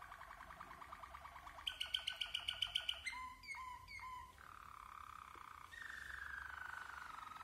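White Waterslager (Malinois) song canary singing a continuous run of rolled tours: a slowly falling roll, a louder fast-pulsed stretch about two seconds in, three short swooping notes, then long gently falling rolls.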